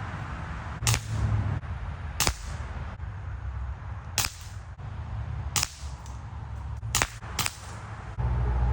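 Air pistol firing six sharp shots, spaced about one to two seconds apart with the last two in quick succession, under a steady low rumble of strong hurricane wind buffeting the microphone.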